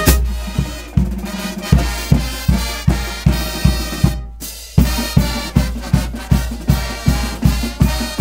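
A brass-and-drum pep band plays an upbeat tune, with brass over a bass drum and snare keeping a steady beat of about three strikes a second. About four seconds in the band stops dead for half a second, then comes back in on a loud hit.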